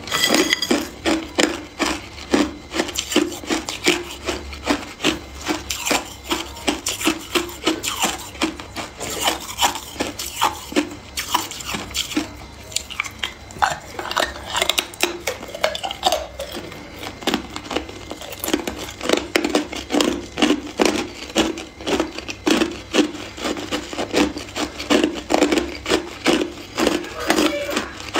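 Hard ice being bitten and chewed, a quick run of crisp crunches at about two or three a second, with a quieter stretch about halfway through.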